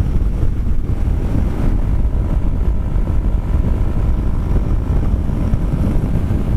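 Wind buffeting the microphone on a Kymco Xciting 400i maxi scooter riding at speed, with its engine and road noise running steadily underneath.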